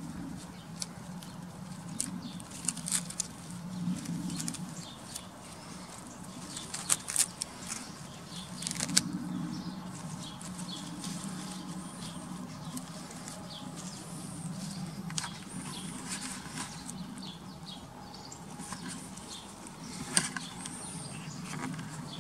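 A cat chewing and tugging at plant leaves: scattered crisp bites and leaf rustling close to the microphone, with a few louder clusters, over a steady low hum.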